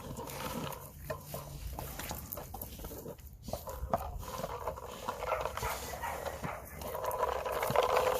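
A 3D-printed PETG noise-enrichment toy clattering and knocking as pigs push it around, mixed with the animals' own vocal noises, which get louder near the end.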